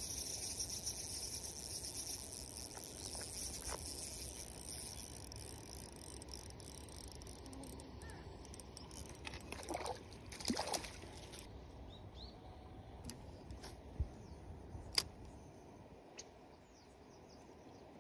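Spinning reel whirring steadily as a hooked trout is reeled in, stopping about eleven seconds in. The trout splashes at the surface as it is netted, about ten seconds in, and a few sharp clicks follow near the end.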